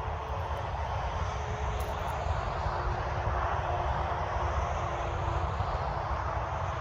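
Steady outdoor background noise with a fluctuating low rumble and a faint drone that drifts slowly lower in pitch; no club strike is heard.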